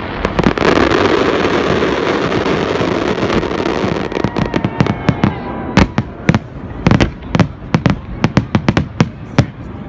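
New Year fireworks display going off: a dense, continuous wash of crackle for the first four seconds or so, then a rapid, irregular string of sharp bangs.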